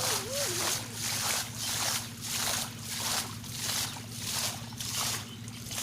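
Water sloshing in a steady rhythm, about two surges a second, over a constant low hum.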